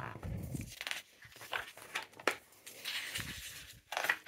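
Glossy magazine pages being handled and turned by hand: a series of short paper rustles and slides, with a soft bump or two as the page is laid flat.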